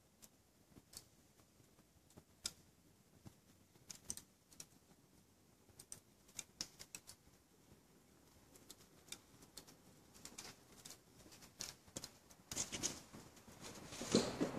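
Dry untreated wood fire crackling faintly, with scattered sharp pops that come thicker near the end; the petrol has burnt off and the wood itself is now the fuel.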